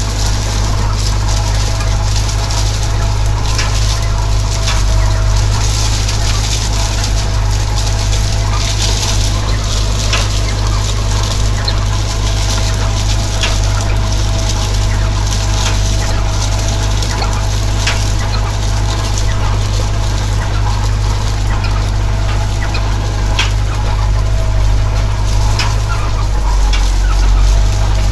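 Tractor engine running steadily while it drives a single-rotor rotary rake raking hemp straw. A steady mechanical whine and frequent short clicks and rattles from the rake's rotor and tine arms sit above the engine.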